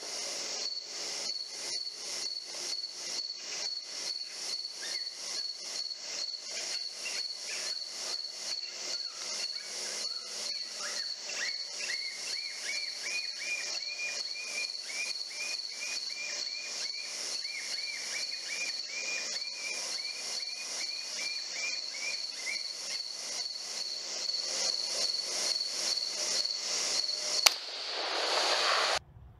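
Night insect chorus, a steady high trill pulsing about three times a second, with a second, lower run of quick chirps joining in the middle. Near the end a single sharp crack stands out above it.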